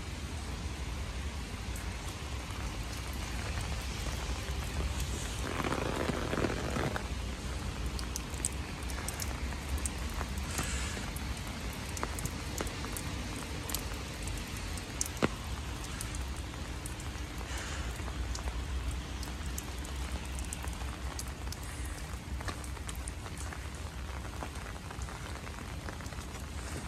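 Steady light rain with many small scattered drop ticks over a low steady rumble. A brief louder rush comes about six seconds in, and a single sharp tap, the loudest moment, about halfway through.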